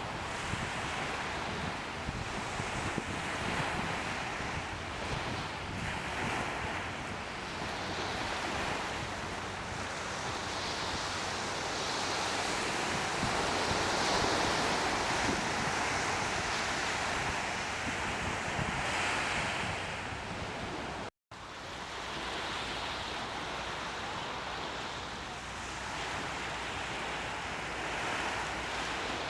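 Waves washing on the bay and wind buffeting the microphone: a steady rushing noise that slowly swells and eases, with a low rumble underneath. It cuts out for a split second about two-thirds of the way through.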